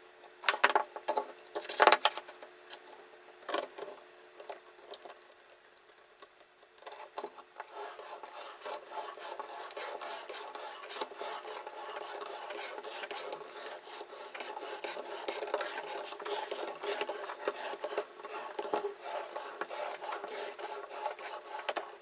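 Clicks and knocks of the knife sharpener's clamp and stone being handled in the first few seconds. After a short lull comes a continuous, fast rasping of a steel knife blade rubbed over an abrasive sharpening plate, sped up about threefold.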